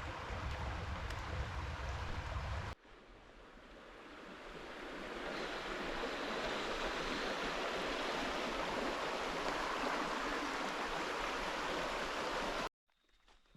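Steady rush of flowing river water that swells up over a few seconds and cuts off abruptly near the end. Before it, a rumbling noise with a heavy low end stops with a hard cut.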